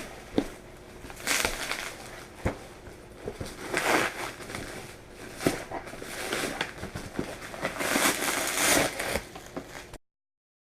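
Packaging being handled and crinkled, in several swells of rustling with sharp clicks and taps between them; the sound cuts off to silence near the end.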